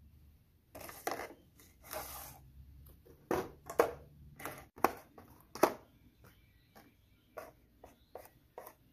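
Steel washers, nuts and bolts clicking and clinking as they are picked up and set down on a cardboard box, an uneven string of sharp clicks, loudest a little past the middle.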